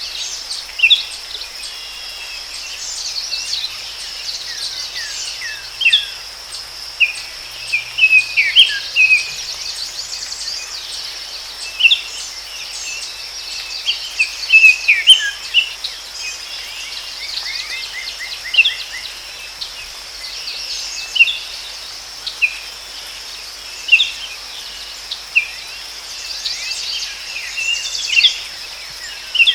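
Forest ambience: many short bird chirps and downward-sweeping calls repeating every second or two over a steady high insect drone.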